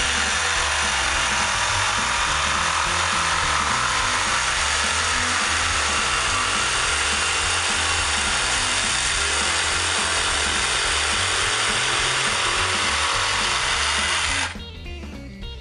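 Cordless jigsaw cutting through two stacked pieces of half-inch plywood at once, running steadily under load, then stopping about a second before the end.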